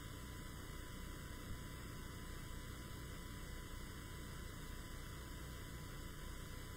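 Steady electrical mains hum with a light hiss on the audio line, unbroken and unchanging.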